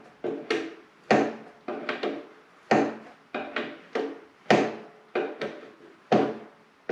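Hand wrench working a motorcycle's rear axle nut loose: an uneven run of short metallic clacks, about two a second, each ringing briefly.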